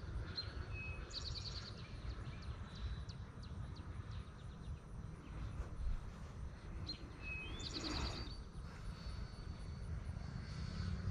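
Small birds chirping, with a buzzy trill about a second in and another around eight seconds in, over a steady low rumble of wind on the microphone.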